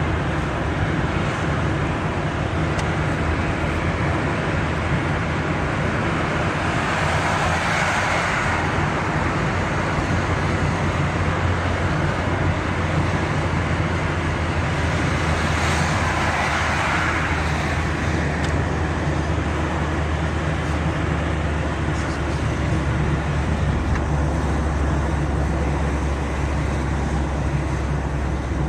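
A car driving on the road: steady engine hum and tyre and road noise, with a rushing that swells twice, about seven seconds in and again about sixteen seconds in.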